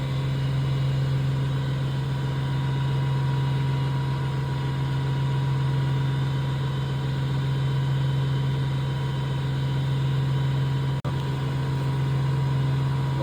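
An engine running steadily at idle, a constant low drone with a brief break about eleven seconds in.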